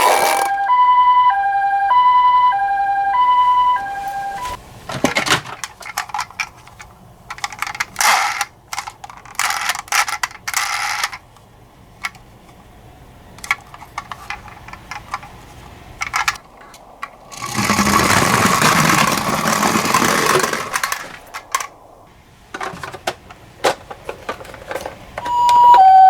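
Two-tone hi-lo ambulance siren alternating between a higher and a lower note about once a second, which stops after about four seconds. Irregular clicks and knocks follow, with a few seconds of rushing noise in the middle, and the siren starts again near the end.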